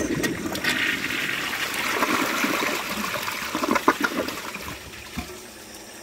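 Kohler Embrook toilet's full flush: water rushes into the bowl and down the drain, carrying a washcloth away, then eases off after about four and a half seconds.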